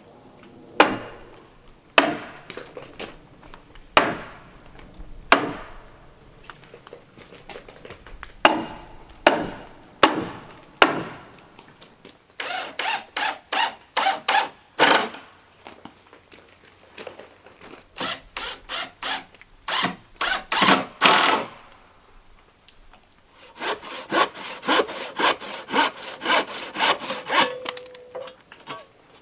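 Hand saw cutting through 2x4 lumber in quick rhythmic strokes, about three to four a second, in three runs through the second half. Before that there are a handful of separate sharp knocks on wood.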